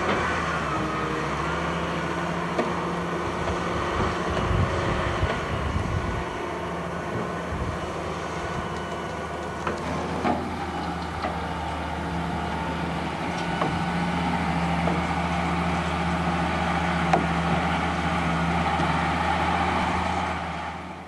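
Diesel engine of a hydraulic log loader running steadily as it loads logs onto a logging truck, with a few sharp knocks and clunks of logs and steel. The engine note drops briefly right at the start.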